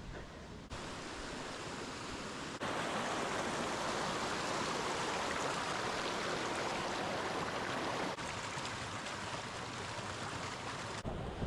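Steady rush of running water, like a stream or small waterfall. It gets louder in abrupt steps about half a second and two and a half seconds in, and drops back in steps about eight seconds in and again near the end.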